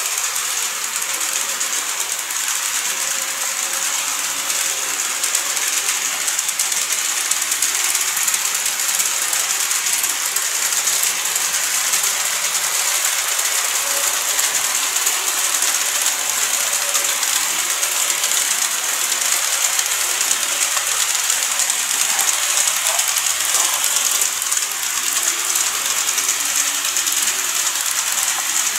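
Model electric trains (KATO E231 series and TOMIX 103 series) running on layout track: a steady, fine mechanical rattle of small wheels and drive gears over the rails, with a steady high whine beneath.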